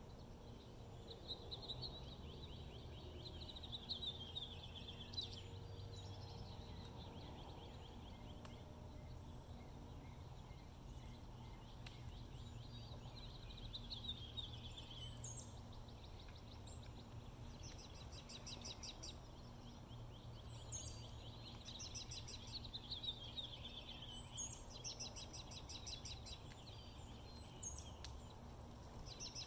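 Small birds singing, repeated rapid trills and chirps coming and going over a low steady background rumble.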